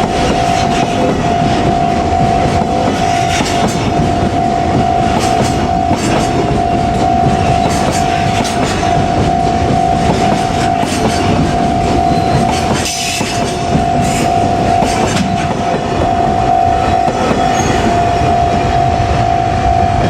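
Container wagons of a long freight train rolling past a level crossing, wheels clattering over the rail joints. Over it the crossing's warning bell rings on one steady pitch. The rumble dips briefly about two-thirds of the way through.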